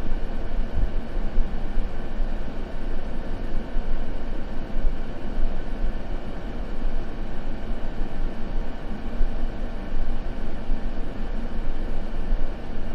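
Continuous synthetic white noise, steady and unchanging, its energy weighted toward the low end so it sounds like a deep rumbling hiss, with no fire crackle or other events.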